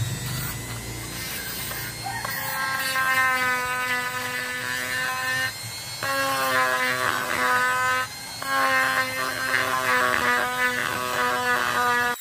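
Handheld rotary tool with a sanding bit running at high speed and grinding out the centre hole of a subwoofer's fabric spider: a steady high whine over a rasping grind. It dips briefly twice, about halfway through and again a little later.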